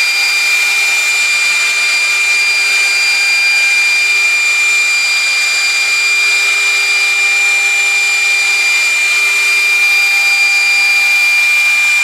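CNC router spindle running at high speed and cutting through sheet stock on a vacuum table. It gives a steady high-pitched whine over the hiss of the cut.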